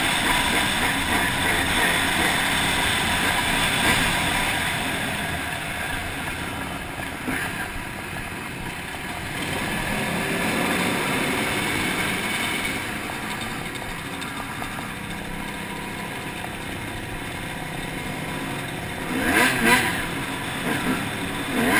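Dirt bike engine running under the rider, its level rising and falling with the throttle. A few louder bursts of noise come near the end.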